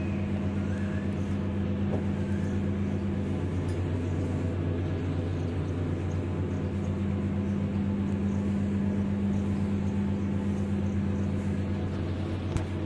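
A steady low mechanical hum, like a running engine or motor, which cuts off abruptly near the end.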